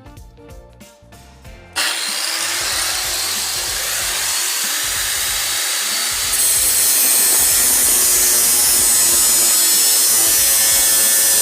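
A power tool working steel runs as a steady harsh noise. It starts suddenly about two seconds in, gets louder about halfway through, and cuts off abruptly at the end. Background music plays under it.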